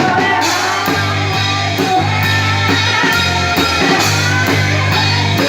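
Rock music with guitar over a steady drum beat, about two beats a second.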